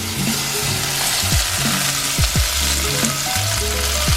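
Chopped peppers, onions and spinach sizzling steadily in hot coconut oil in a skillet, just after going into the pan. Background music with a steady beat plays underneath.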